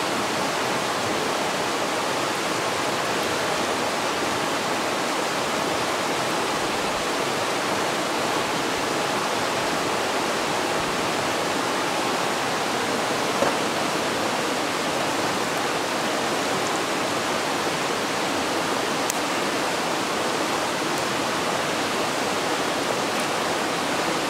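Fast stream water rushing over a rocky riffle: a steady, even rush of white water with no let-up. One brief faint tap a little past halfway.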